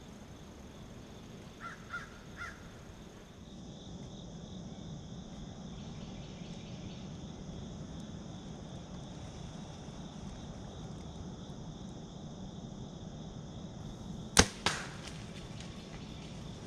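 A compound bow shot about fourteen seconds in: one sharp, loud crack of the string releasing, then a smaller smack a fraction of a second later as the arrow strikes the doe. Near the start a crow caws three times.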